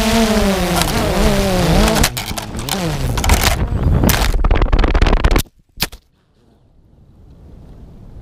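A DJI Phantom 2 Vision Plus quadcopter's motors and propellers buzzing, their pitch lurching up and down as the drone flies into a tree. This is followed by rapid clattering knocks as the spinning propellers strike branches and the drone tumbles. The motors cut out suddenly about five and a half seconds in, with one last knock, leaving only a faint hiss.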